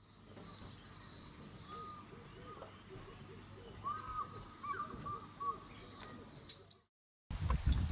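Faint dawn marsh ambience of several birds calling: short whistled notes that rise and fall, a thin high call and a low repeated warbling. It cuts off about seven seconds in, and a louder, noisier sound starts just before the end.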